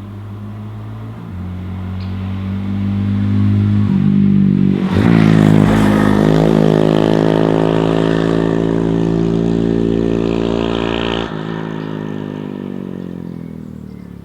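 Honda Monkey 125 with a Takegawa RS exhaust riding past: the single-cylinder four-stroke engine note grows louder, peaks about five seconds in as its pitch drops, then fades away. About eleven seconds in it drops suddenly in level.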